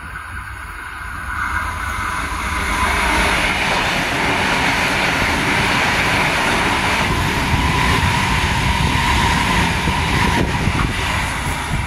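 Adelaide Metro 4000 class electric trains passing at close range, their running noise swelling about a second and a half in and staying loud. A faint steady whine rises out of the noise in the later part.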